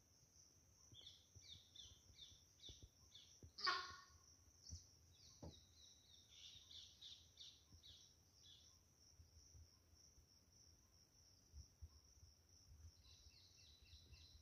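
A sambar deer gives one short, loud alarm call about four seconds in, its warning that a tiger is near. Behind it, a steady high insect trill runs throughout, with runs of small-bird chirps.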